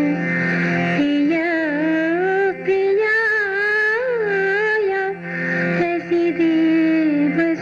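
A single voice singing a slow, gliding melody over a steady drone, with short pauses between phrases.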